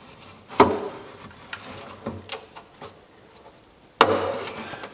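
Knocks and clanks of tools and engine parts being handled and set down: a sharp knock about half a second in, a few light taps, then a louder clank with a short ring about four seconds in.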